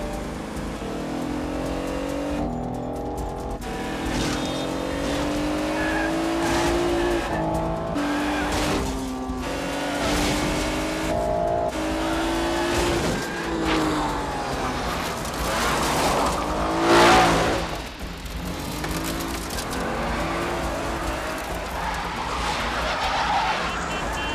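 Cars racing hard: engines rev up through the gears again and again, with tyres squealing. The loudest burst of engine and tyre noise comes about 17 seconds in.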